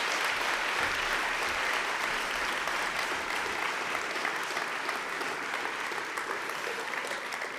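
Audience applauding, the clapping slowly dying away toward the end.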